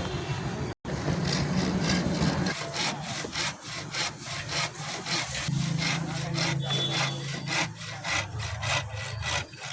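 Hand saw cutting through wood in quick, even back-and-forth strokes, about four a second, over a steady low hum.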